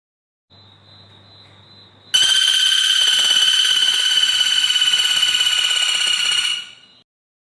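A bird's steady, high buzzing call held for about five seconds, starting suddenly about two seconds in and cutting off, preceded by a faint thin high tone.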